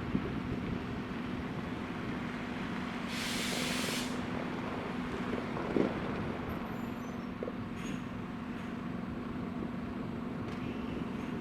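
Diesel train idling at a station with a steady engine hum, and a hiss of compressed air from its brakes lasting about a second, three seconds in. A single short knock comes near the middle.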